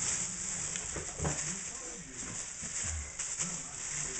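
Plastic bag crinkling and rustling steadily as a game hen is shaken inside it in seasoned flour, with a few soft thuds.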